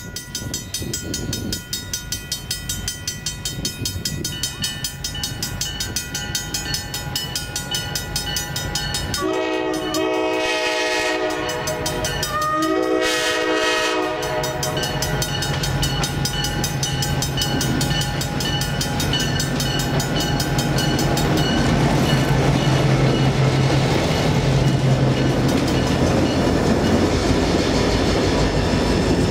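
Pan Am Railways diesel locomotives approaching a grade crossing, with a fast steady ringing, likely the crossing bell. About nine seconds in, the lead locomotive's air horn sounds two chords, a long one and then a shorter one. The engines' low drone then builds, and from about two-thirds of the way through the locomotives pass close by, rumbling with wheel and rail noise.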